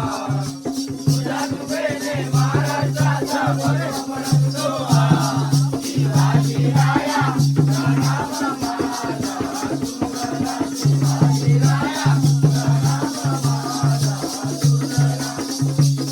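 Live Jakhadi (balya dance) folk music: a male singer's voice over a steady held tone, a regular low drum beat and fast, constant jingling percussion.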